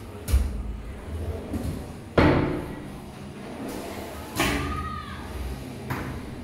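A modular kitchen drawer holding a stainless-steel wire dish basket being pulled open and pushed shut: a series of sharp knocks and thuds, the loudest about two seconds in, with a short ringing note after the knock about four and a half seconds in.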